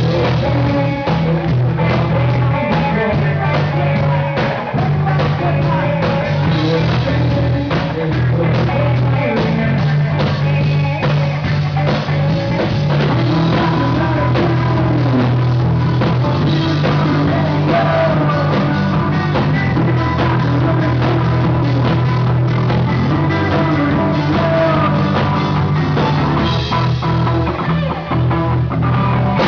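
Rock band playing live: singing over guitar, bass and a drum kit, loud and continuous.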